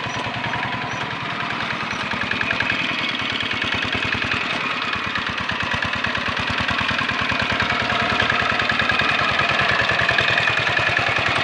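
Single-cylinder diesel engine of a two-wheel hand tractor running steadily as the tractor works through a flooded rice paddy, its firing beats evenly spaced. It grows louder in the second half as the tractor comes closer.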